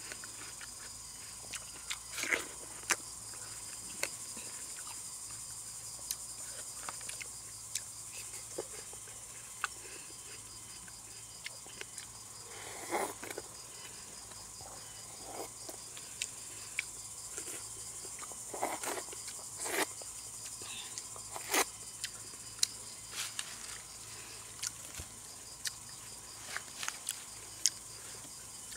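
Insects chirring steadily and high-pitched, with scattered short wet clicks and a few louder slurps and bites as watermelon is eaten and its juice drunk from the rind.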